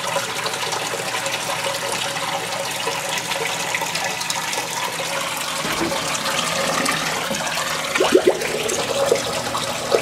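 Water running steadily through a Maytag Bravos XL top-load washer's drum as it drains and refills itself. The machine is stuck with an out-of-balance load, and the owner guesses it is trying to rebalance the towels by soaking them again.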